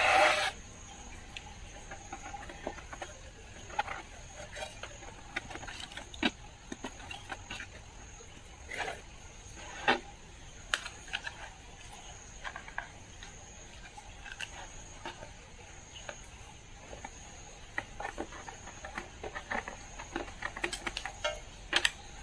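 Light, scattered taps, clicks and rubs of hands pressing and seating a new cone in a 15-inch loudspeaker frame, over a steady faint high whine. A louder noise cuts off about half a second in.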